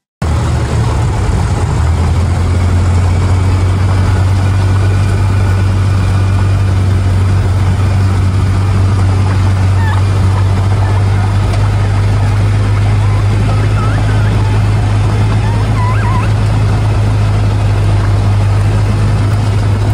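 Engine of a Polaris Ranger side-by-side utility vehicle running steadily while it is driven along a woods trail. A loud low drone carries a rough rumble of wind and terrain noise.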